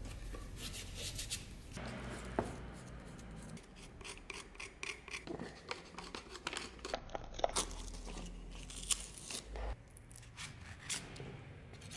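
Rag and paper rubbing and scraping over disassembled cast-iron vise parts, with irregular sharp clicks and knocks of the metal parts being handled.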